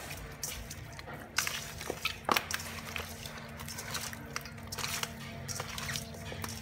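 A hand squishes and turns raw chicken pieces in a stainless steel bowl, with sharp clicks and knocks as the pieces hit the metal, the loudest about two seconds in. A faint steady hum runs underneath.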